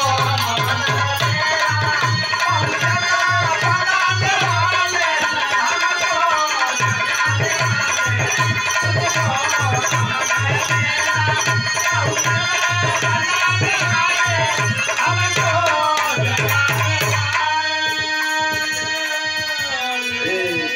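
Live bhajan music: a dholak hand drum playing a fast, steady rhythm under harmonium and a male singing voice. The drum stops about 17 seconds in, leaving held harmonium notes and voice.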